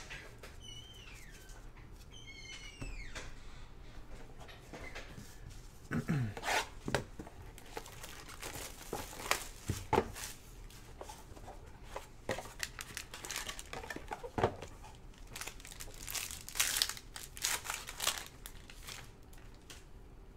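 Trading-card pack wrappers crinkling and tearing as packs are ripped open and handled, in irregular crackly bursts that grow busy from about six seconds in.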